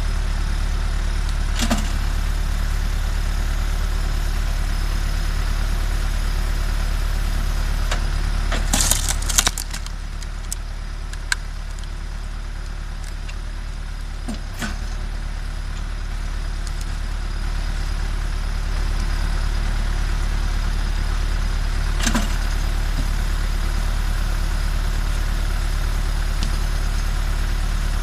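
MTZ 552E tractor's diesel engine running steadily, powering a Posch HydroCombi 22 hydraulic log splitter. Sharp cracks and knocks of logs splitting and wood being handled come in a cluster about a third of the way through, with single ones now and then.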